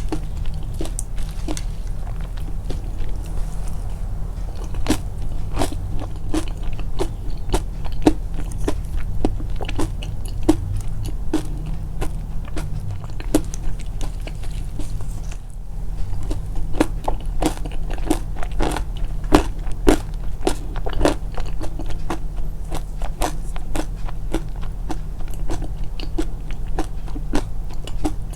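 Close-miked chewing of crunchy food, a crunch about twice a second with a short pause midway, over a steady low hum.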